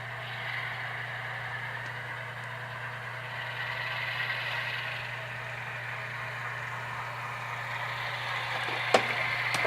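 Model Alco C424 locomotive's Tsunami sound decoder playing diesel engine sound through its small speaker: a steady running engine over a low hum, with a sharp click near the end.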